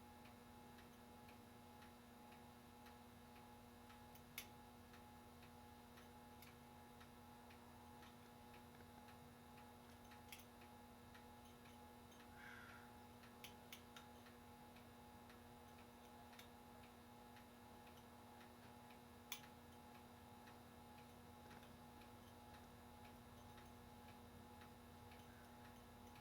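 Near silence: a faint steady hum with a few small, sharp clicks at irregular intervals, as from light handling of a clock movement while its pivots are oiled.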